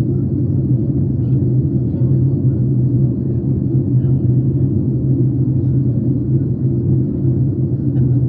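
Steady, even cabin rumble of a Boeing 737 MAX 8 airliner in flight, heard from a window seat over the wing.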